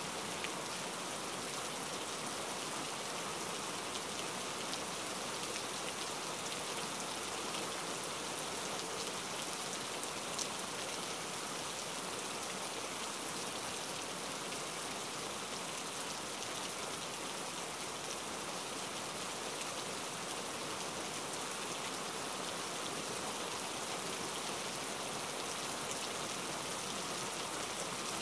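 Steady sizzle of sliced garlic and red chilies sautéing in oil in a wok, with a few faint ticks.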